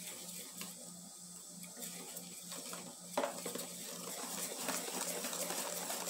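Wire whisk beating a thin batter in a stainless steel bowl, its wires clicking and scraping against the metal. The whisking gets quicker and louder about three seconds in.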